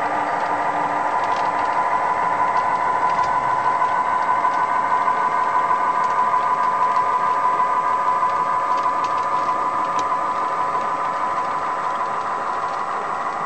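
Diesel engine sound from a Loksound DCC sound decoder running a generic US GM diesel sound project, played through the HO scale model locomotive's small speaker: a steady engine drone that fades a little near the end, with a few faint clicks.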